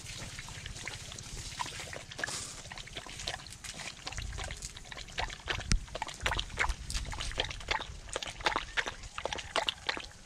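A dog lapping water, with irregular wet laps and slosh that get busier about four seconds in.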